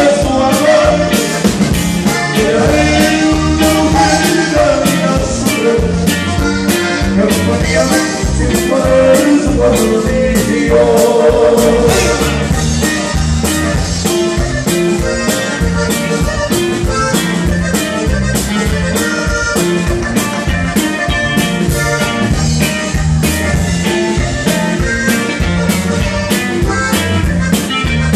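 Live norteño band playing: a button accordion carries the melody over a steady drum-kit beat with guitar.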